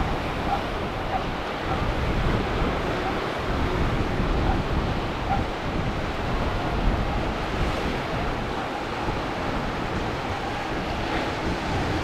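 Wind buffeting the microphone over the steady wash of breaking waves and surf.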